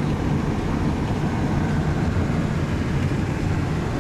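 A car driving at steady speed: road and engine noise, an even low rumble.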